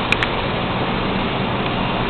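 Steady, even background rush of an indoor shooting range, with two short, faint clicks near the start.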